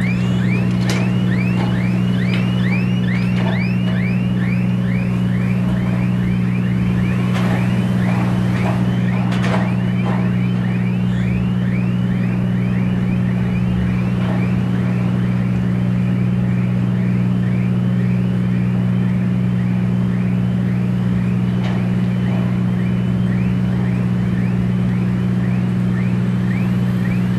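A repeating crane warning alarm: a short chirping tone, about two or three times a second, while the ship's deck crane lifts and slews its load. Under it runs the steady low drone of the ship's machinery, with a few brief metallic clanks.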